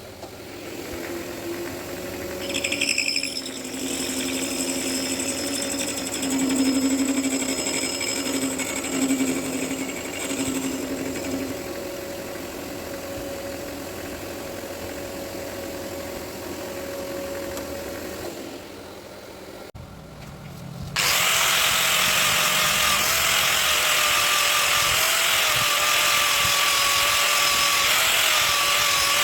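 Electric power tool used in sharpening mincer parts, running with a shifting grinding hiss. It dies away near two-thirds of the way in, and a louder, steady whine with dense hiss starts suddenly soon after and holds.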